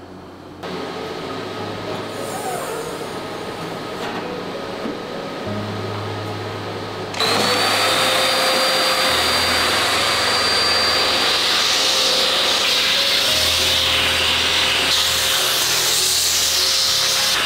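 Canister wet/dry vacuum cleaner switching on about seven seconds in and running steadily with a high whine, its hose sucking out the inside of a 3D printer. Before it starts there is a quieter steady machine hum, with faint background music throughout.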